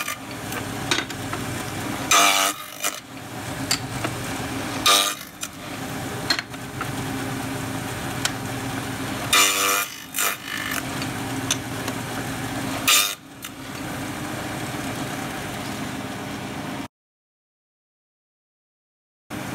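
Table saw running steadily while a spruce board held upright in a box-joint jig is pushed through the blade, cutting finger-joint notches. Each cut is a short, loud burst of blade noise, about five of them a few seconds apart. The sound drops out completely for the last two or three seconds.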